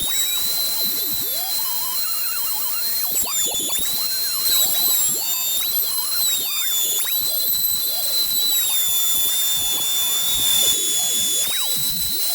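Woodturning lathe running with a steady high whine that sags slightly in pitch and recovers several times as the load changes, under the rasping, scraping sound of a turning tool cutting into spinning oak.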